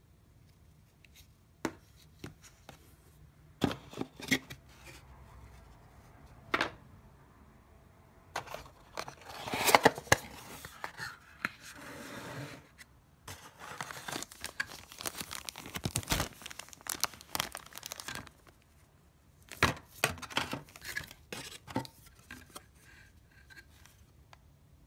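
Plastic packaging rustling and crinkling as it is handled and pulled about, loudest in the middle stretch, with scattered sharp clicks and taps of hard plastic parts before and after.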